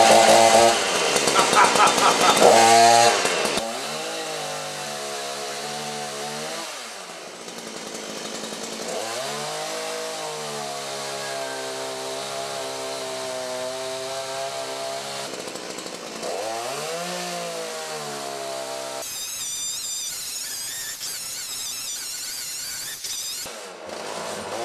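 Chainsaw cutting into an old, partly rotten spruce stump. It is loudest in the first few seconds, then its pitch drops and climbs again several times as it runs.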